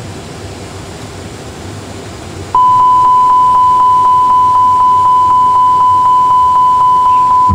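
A low steady cockpit hum, then a loud steady high-pitched warning tone from the A320 simulator starts suddenly about two and a half seconds in, pulsing faintly about four times a second. It sounds as the aircraft, out of energy after a dual engine flame-out, crashes short of the runway.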